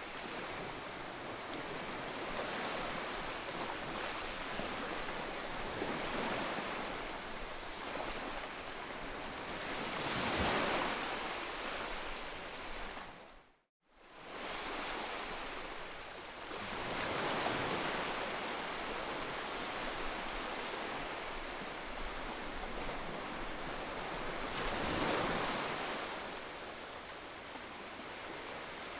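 Ocean waves: a steady rush of surf that swells and ebbs, with louder surges every seven seconds or so. About halfway through, the sound fades briefly to silence and back in.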